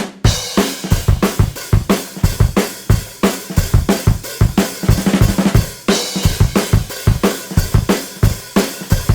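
Background rock music carried by a fast, steady drum beat with bass drum, snare and cymbals.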